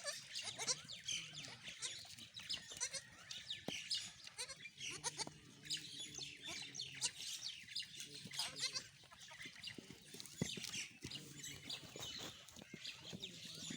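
Teddy goats bleating now and then, among many short high-pitched chirping sounds.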